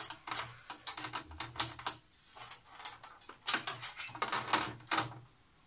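Motherboard being pushed and seated into a PC case: irregular clicks, taps and light scrapes of the board and hands against the case and cables, easing off briefly about two seconds in, then a denser run of clicks.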